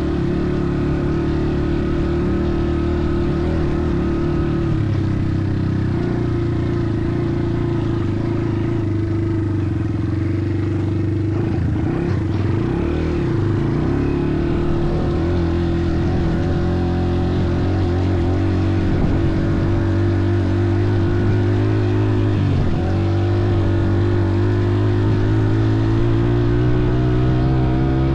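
Motorcycle engine running steadily under way, its pitch shifting as the throttle changes and rising slightly near the end.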